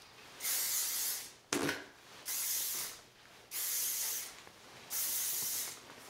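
Living Proof flexible-hold hairspray sprayed in four separate hissing bursts of about a second each.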